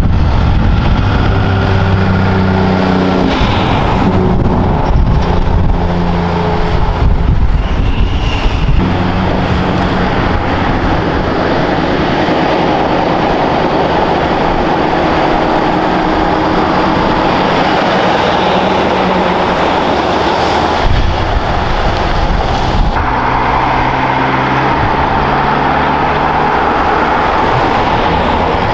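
Heavy trucks' diesel engines running as they come through a bend one after another: a Kenworth cab-over, then Scanias. In the first several seconds the engine note steps up and down in pitch several times, and a fresh engine note comes in a little over twenty seconds in.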